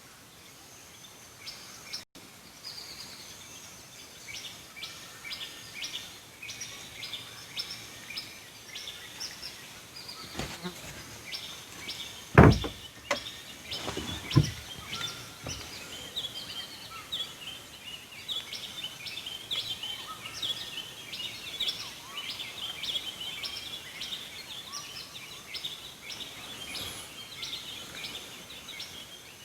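Birds chirping busily and continuously, many quick high calls. A few knocks sound near the middle, the loudest about twelve seconds in.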